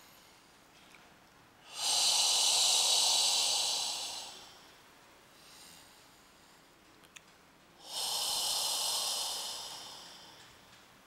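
A person breathing out hard twice, each long exhale lasting about two and a half seconds, starting sharply and slowly trailing off.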